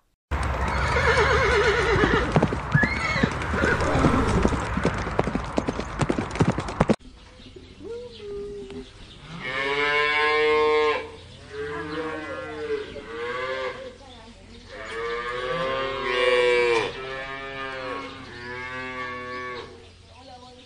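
Cattle mooing: a run of long calls, some bending in pitch, from about seven seconds in. Before that comes a loud, dense noisy stretch full of sharp knocks, which cuts off suddenly.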